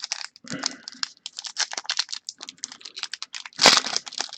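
Trading cards and a foil pack being handled by hand: a rapid run of light clicks and flicks as cards are sorted. About three and a half seconds in there is a louder crinkling burst of the wrapper.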